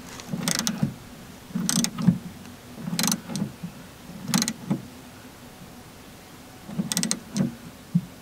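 Socket ratchet clicking in short bursts, about eight strokes with pauses between, while the new generator fuel filter is snugged up by hand.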